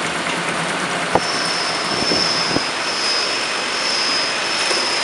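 Rotary water bottle filling and capping machine running: a steady mechanical din with a few sharp clicks, and a thin high whine that comes in about a second in.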